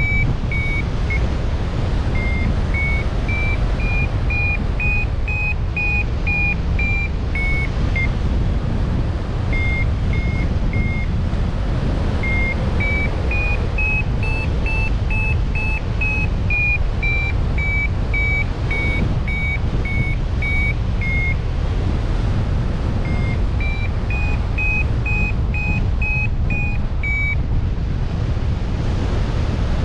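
Steady low rumble of wind on the microphone, with a string of short, high ringing tones repeating a bit under two times a second.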